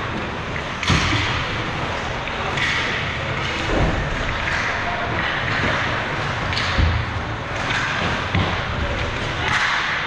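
Ice hockey rink noise: a steady wash of arena sound broken by a few sharp thuds of the puck or players hitting the boards and glass.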